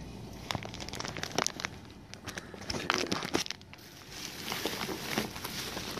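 Plastic fish shipping bags crinkling as a hand handles them, in uneven spells with a brief lull about four seconds in.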